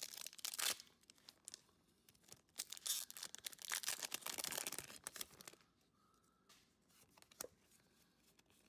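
Foil wrapper of a Pokémon card booster pack being torn open and crinkled: a short spell of tearing at the start, then a longer rustling tear of about three seconds, followed by a few faint clicks of handling.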